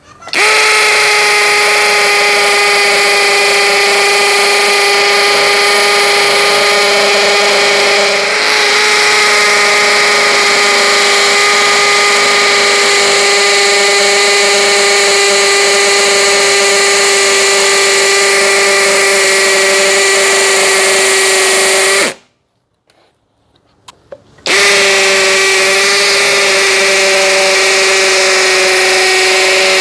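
DCK KDJZ03-13 cordless brushless hammer drill in hammer mode, second gear, boring a 10 mm masonry bit into a concrete block: a steady high whine over dense rapid hammering. It stops about 22 seconds in and starts again some two seconds later.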